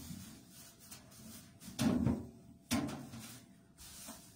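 Handling noises as a cabin is cleaned: a few knocks and thumps, the loudest about two seconds in, another just under a second later, with softer rustling between them, over a faint steady hum.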